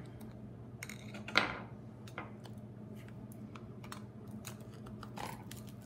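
Scattered light clicks and taps of a small screwdriver working at the tiny screws of an Amazon Kindle's circuit board, with one louder scrape about one and a half seconds in. A faint steady hum runs underneath.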